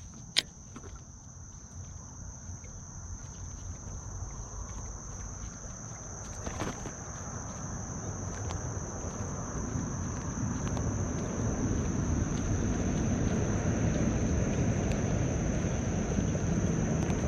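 Steady, high-pitched chorus of insects ringing without a break. A single sharp click comes about half a second in, and a low rushing noise grows louder through the second half.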